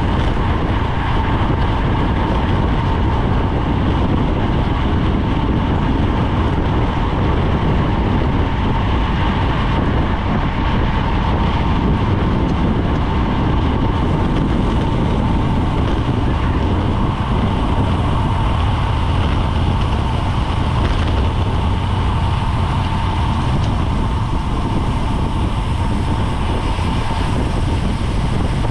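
Steady rush of air over a GoPro's microphone on a moving road-race bicycle, with a faint steady whine running under it.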